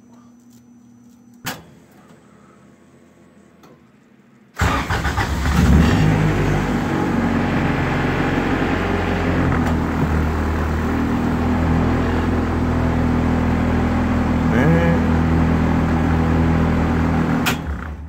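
A single click about a second and a half in. Then the Honda's four-cylinder engine starts about four and a half seconds in and idles steadily. Near the end it cuts out abruptly as the kill switch is thrown, shutting the car down completely.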